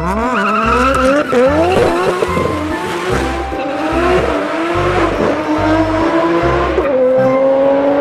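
Race car engine revving hard, its pitch climbing in repeated sweeps as it goes up through the gears, then holding a steady note near the end.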